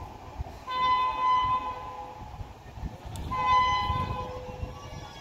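WAP7 electric locomotive horn sounding two long blasts, a little over a second each and about two and a half seconds apart, as the train approaches at speed, over a low rumble.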